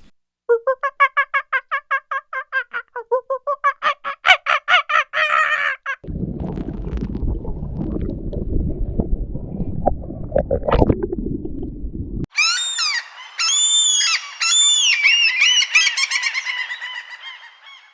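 Bird calls in three cuts. First, a rapid run of repeated honk-like calls, about five a second, for about five seconds. Then a stretch of low rushing noise, and from about twelve seconds in, high chirping calls.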